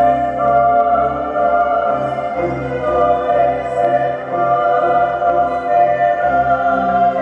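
Soundtrack music of a light-and-sound show played over loudspeakers: slow, sustained chords held for a few seconds at a time before changing.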